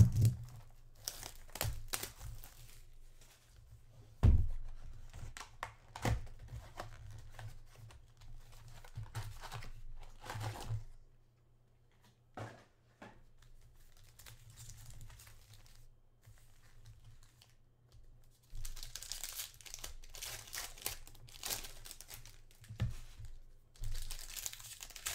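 A trading-card box and foil card packs being handled and torn open: scattered cardboard knocks and taps, with a loud thump about four seconds in. Near the end come stretches of wrapper crinkling and tearing.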